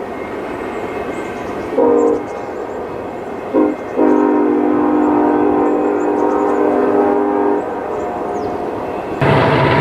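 Nathan Airchime locomotive horn sounding a multi-note chord: two short blasts, then one long blast of about three and a half seconds, over steady background noise. Near the end a louder horn chord sets in.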